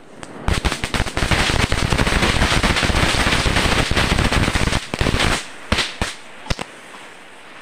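Diwali firecrackers going off: a rapid crackling string of bangs lasting about five seconds, then three separate pops.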